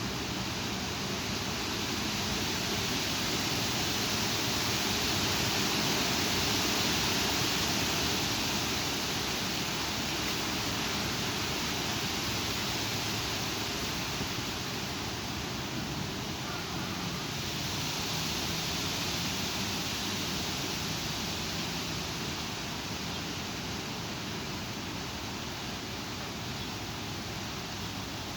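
Strong thunderstorm wind blowing with a steady rush, swelling in gusts about five seconds in and again around eighteen seconds.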